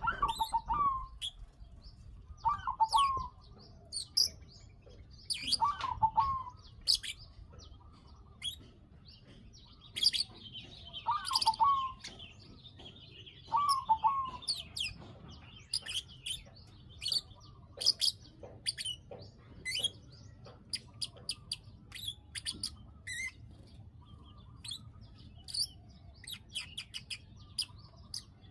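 Bar-winged prinia (ciblek) calling with rapid, sharp, high 'klik klik' chips in irregular bursts. Short lower warbled notes come every few seconds in the first half. This is the call bird keepers use as a lure to bring birds into breeding condition.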